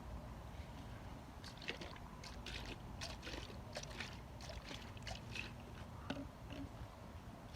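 Homemade rustling, swishing sound effect for walking through long wavy grass: a run of short brushing strokes over about five seconds.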